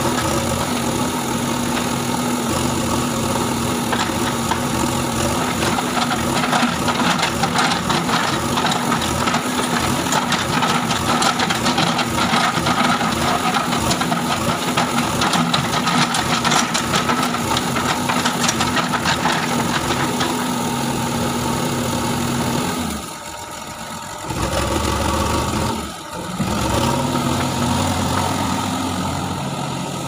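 JCB 3DX backhoe loader's four-cylinder diesel engine running steadily under load while the backhoe bucket digs into loose soil. The sound drops out briefly twice about three quarters of the way through, then the engine carries on.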